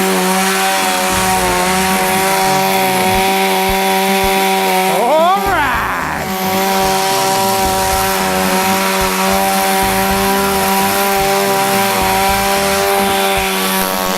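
Two-stroke chainsaw running steadily at high revs, with a brief swoop in pitch about five seconds in.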